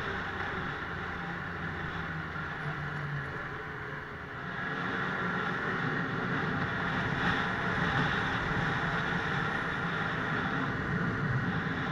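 Snowmobile engine and track running steadily, heard from the sled while riding over packed snow. It eases off briefly about four seconds in, then picks up again.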